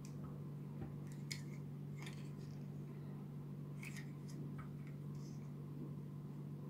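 Scattered small plastic clicks and taps as the parts and joints of a Papa Toys PPT-02 fire engine transforming robot figure are handled and adjusted, over a steady low hum.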